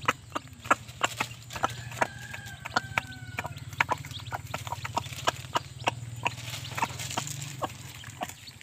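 Hen pecking grain from a feed trough: quick, irregular taps of her beak on the trough, several a second. A few thin chick peeps come about two to three seconds in, over a low steady hum.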